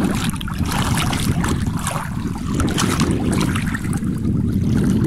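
Wind rumbling on the phone's microphone, with river water splashing and lapping as a swimmer strokes through it.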